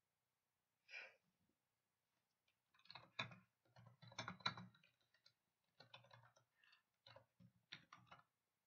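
Typing on a computer keyboard: irregular runs of quick key clicks with soft thuds, starting about three seconds in, after a single brief soft noise about a second in.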